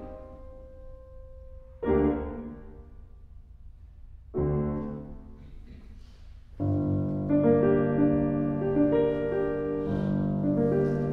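Piano four-hands on a Steinway & Sons concert grand. Two separate chords are struck, about two and four and a half seconds in, and each is left to ring and fade. From about six and a half seconds in, steady playing with repeated notes takes over.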